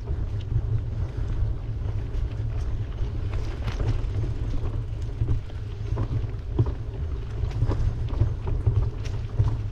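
Wind buffeting the microphone of a camera riding along on a bicycle, a steady deep rumble with road noise and scattered light knocks.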